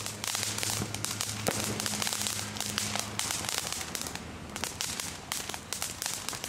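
Ground firework fountain spraying sparks with a steady hiss, full of rapid crackling pops throughout.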